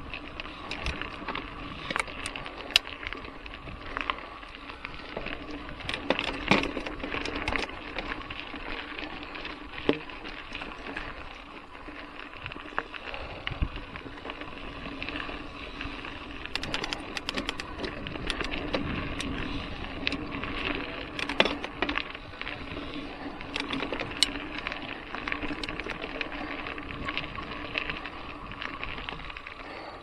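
Trek Fuel EX 7 full-suspension mountain bike rolling along a dirt singletrack: steady tyre and drivetrain noise with frequent sharp clicks and knocks as it goes over bumps and roots.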